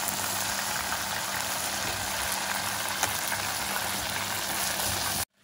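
Flour-coated chicken pieces deep-frying in hot oil: a steady bubbling sizzle that cuts off abruptly near the end.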